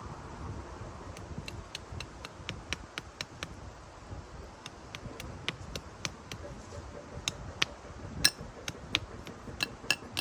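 Hatchet blade chopping a stick to a point with light, quick strokes: an irregular run of sharp, ringing knocks, coming thicker and louder near the end.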